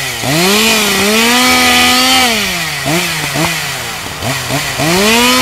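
Two-stroke chainsaw engine revving: it winds up and holds at high revs for a second or so, drops back, gives a few quick short blips of the throttle, then winds up and holds high again.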